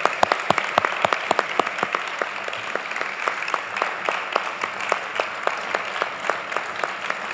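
A hall audience applauding, with a few nearby claps standing out sharply at about three a second.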